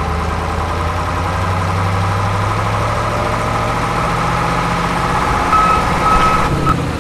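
Heavy truck engine idling, a steady low drone with a higher hum over it, and a brief high tone near the end.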